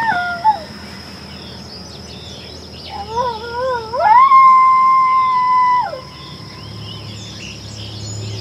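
Coyote howls sounded on a predator call as a locator howl, meant to draw a reply from coyotes. A falling tail of one howl comes in the first second, then a wavering call about three seconds in rises into one long, steady howl that drops off near the six-second mark. Small birds chirp faintly behind it.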